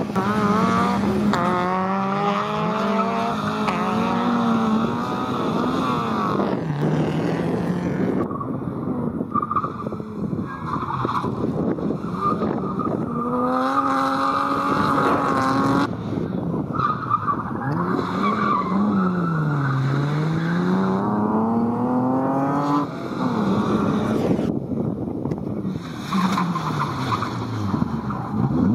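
Rally cars driven hard past in turn, among them a Renault Clio, a BMW E30 3 Series and a Mk2 Ford Escort: engines revving up through the gears in repeated climbing runs, dropping in pitch when the drivers lift off and then rising again, with abrupt breaks between one car and the next.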